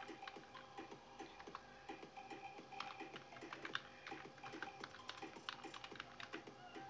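Computer keyboard being typed on: a quick, irregular run of key clicks.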